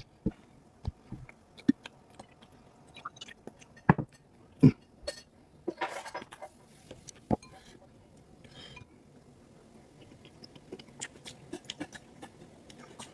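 Scattered clinks and knocks of bottles, a glass dipping bowl and chopsticks on a table as vinegar and chili oil are poured into the bowl. There are two louder knocks about four seconds in and a short rush of noise about six seconds in.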